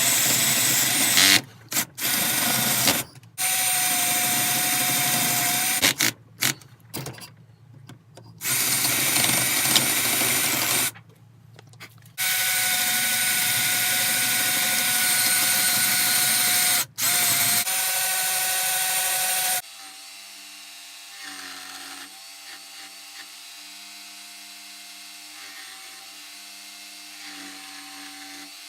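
A power tool working wood, running loud and steady in several stretches broken by abrupt cut-outs. For the last third it gives way to a quieter, steady hum with held tones.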